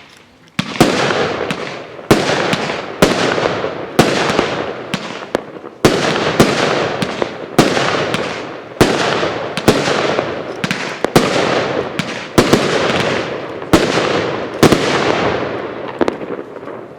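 Royal Fireworks Gate of Heaven 1 consumer fireworks cake firing shot after shot, about one a second. Each shot is a sharp bang followed by a fading crackling hiss, from its strobe tails and titanium salutes. The shots stop near the end.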